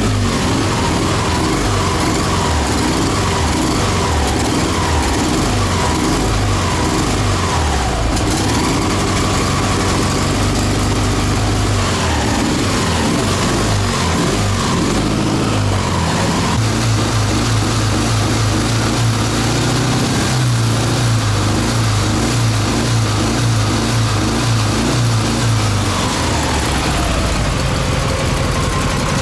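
Dnepr MT16 sidecar motorcycle's air-cooled 650 cc boxer-twin engine running after a cold start and being blipped on the throttle: the revs rise and fall several times, with a steadier, even beat for several seconds past the middle. The owner judges it to be running too rich, with too much fuel reaching the carburettors.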